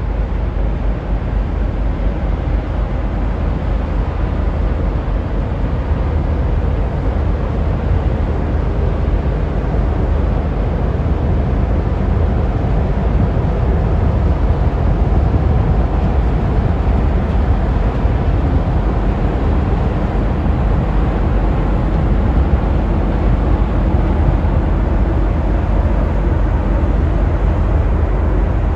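Steady, loud low rumble with a rushing noise above it from the Trillium-class self-unloading lake freighter Baie St. Paul passing close by.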